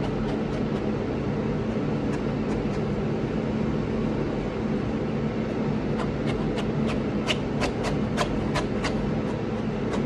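A steady low mechanical hum and rumble. About six seconds in, a run of sharp clicks at roughly three a second joins it for a few seconds.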